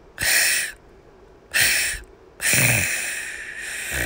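Three loud, breathy hissing noises from a person, the first two short and the third longer, trailing off.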